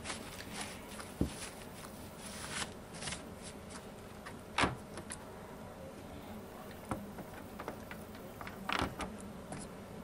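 Hands wiping and handling a cordless chainsaw's guide bar and loose chain: soft rustling of a tissue rubbing the bar over the first few seconds, then a few sharp light clicks of metal, the loudest about four and a half seconds in and a short cluster near the end.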